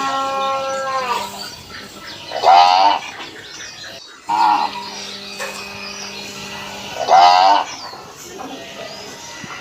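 Indian village cows mooing: a long, steady moo fading out about a second in, then loud, short calls that rise and fall in pitch twice, with another long, level moo between them.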